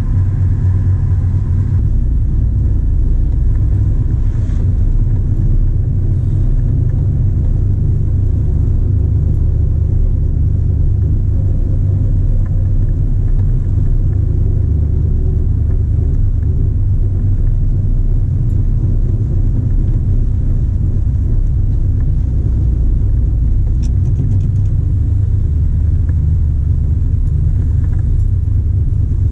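A 1979 Corvette L82's 350 cubic-inch small-block V8 running at low speed, a steady, deep exhaust rumble heard from inside the cabin.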